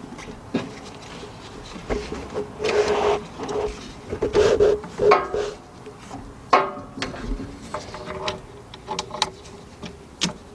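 Hands working a starter motor's wiring plug: scattered clicks, knocks and rubbing of plastic and metal, over a faint steady hum.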